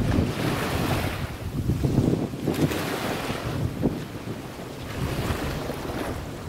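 Wind buffeting the microphone over the wash of choppy sea water, a rushing noise that swells and eases.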